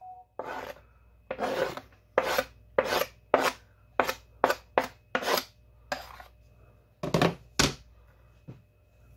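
Metal spoon scraping diced onions off a plastic cutting board into a glass baking dish: about a dozen short scraping strokes with brief pauses between them.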